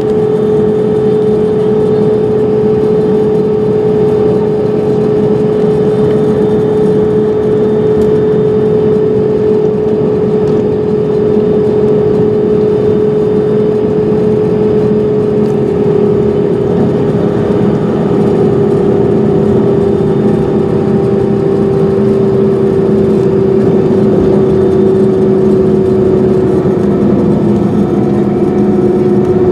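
Jet airliner engines running in a loud, steady drone with a whine that sinks slowly in pitch.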